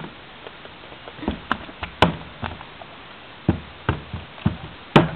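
A small bull shark thrashing on a wet pontoon deck, its body slapping and thudding on the boards in an irregular string of knocks, the loudest about two seconds in and near the end.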